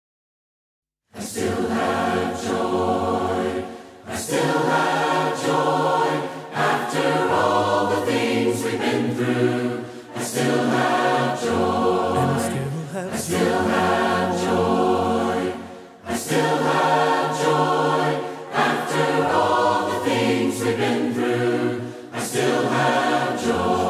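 Mixed choir singing a hymn in four-part harmony, unaccompanied, with low men's voices under the higher parts. It starts about a second in and moves in phrases of about six seconds, with a short breath between them.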